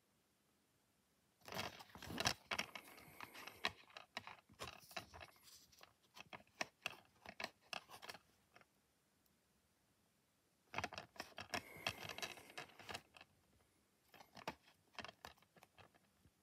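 Clear plastic DVD case being handled: quick rattling clicks and scrapes of hard plastic, in two spells of several seconds each with a pause between.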